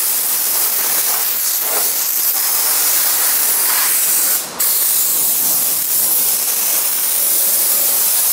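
Compressed-air blow gun blasting water out of the gaps around a car's open hatchback: a loud, steady hiss that cuts off briefly about four and a half seconds in.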